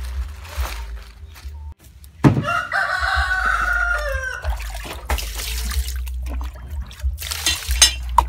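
A rooster crows once, a loud call of about two seconds that starts a little over two seconds in and falls in pitch at its end. Before it, water splashes in a metal basin as leafy greens are rinsed by hand.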